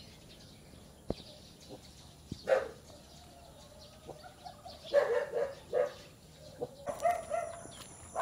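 Domestic fowl calling several times, the calls coming thicker in the second half; a single sharp click about a second in.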